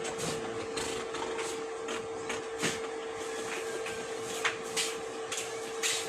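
Small objects being handled and rummaged through: irregular light clicks, knocks and rustles over a steady hum.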